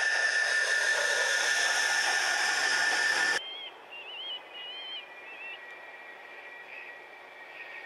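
A MiG-31's twin afterburning turbofan engines running loud as the jet flies past, a steady high whine over a rushing roar. It cuts off suddenly about three seconds in, leaving a much quieter background with faint bird chirps.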